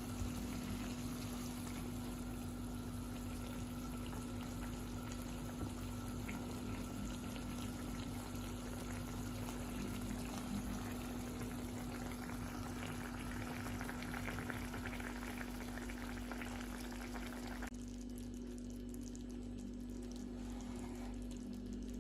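Steady bubbling of cooking liquid in a pan, as in frying or boiling, over a constant low hum. The higher hiss cuts off abruptly about eighteen seconds in, leaving the hum.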